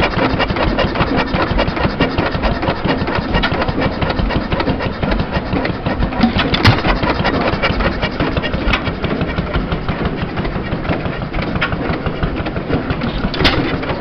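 Amanco Chore Boy hopper-cooled hit-and-miss stationary engine running with a fast, steady mechanical clatter. A louder sharp bang comes about halfway through and another near the end.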